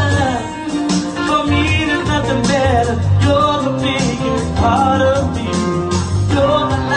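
A woman singing a slow, held melody into a handheld microphone over an amplified backing track with a bass line, as at karaoke.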